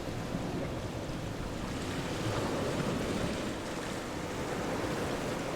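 Steady rushing noise like surf or wind, swelling between about two and three and a half seconds in.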